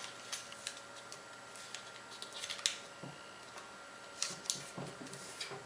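Paper being folded and creased by hand: soft rustles and small crackling clicks, a few louder ones about halfway through and near the end.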